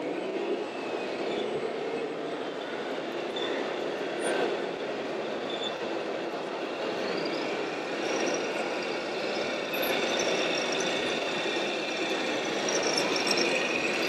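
Steady din of a busy exhibition hall. From about halfway through, thin high whines from the electric drive motors of radio-controlled model trucks come in, one of them rising in pitch.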